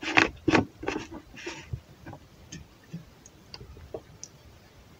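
A few sharp knocks and clinks from a metal teapot and a plastic water jug being handled, bunched in the first second or so with a short splash, then faint ticks as a thin stream of water is poured out of the teapot's spout.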